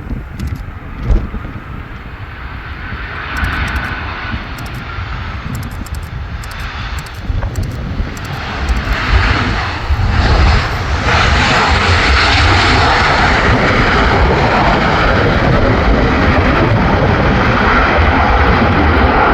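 Boeing 737-800's CFM56-7B jet engines on landing, growing louder and then a loud steady engine noise from about ten seconds in, over a low rumble of wind on the microphone.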